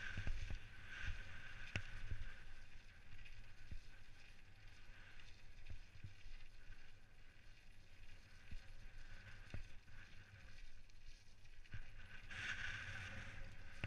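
Specialized Stumpjumper mountain bike descending a rough dirt and gravel trail: tyres rolling and crunching over the surface, with scattered knocks and rattles from the bike over bumps. The rolling noise grows louder near the end.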